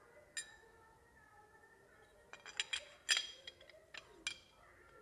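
Light metallic clinks as aluminium motorcycle clutch parts are handled: one about half a second in, a quick cluster of several around three seconds, and one more past four seconds, each with a short ring.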